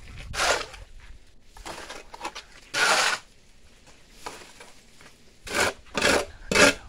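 Steel shovel scraping and turning a hand-mixed batch of concrete (cement, sand and gravel) on hard ground, in separate gritty strokes: a few spread out, the loudest about three seconds in, then three quicker strokes near the end.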